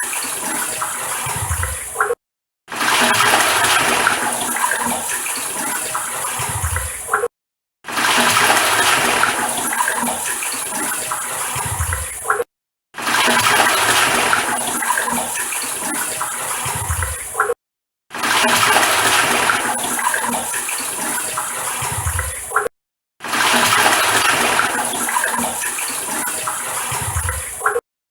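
Toilet cistern flushing, a loud rush of water. It is a short clip of about five seconds repeated over and over, with a brief dead-silent gap between repeats.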